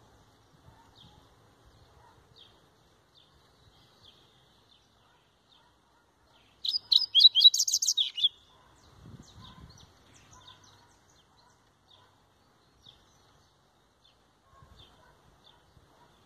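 Double-collared seedeater giving soft single chip calls about once a second, with one loud, fast burst of song about seven seconds in, lasting about a second and a half.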